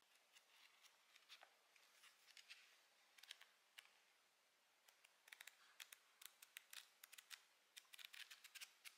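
Paper pages of a hardcover notebook being flipped through by hand: quiet, crisp flicks and rustles in small clusters, coming thicker and faster in the second half.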